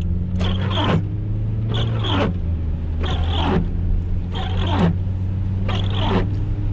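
Inside a moving car: steady engine and road hum, with the windshield wipers sweeping about every 1.3 seconds, each stroke a scraping squeak that falls in pitch.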